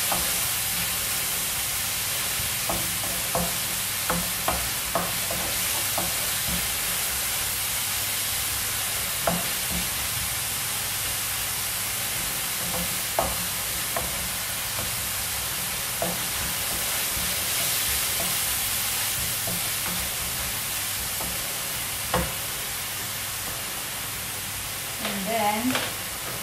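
Chopped onion sizzling in olive oil in a frying pan, with a steady hiss, while a wooden spatula stirs it and knocks against the pan every so often.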